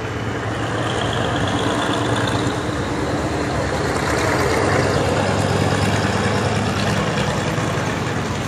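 Diesel train at the station: a steady low engine hum under a broad, even noise that holds throughout.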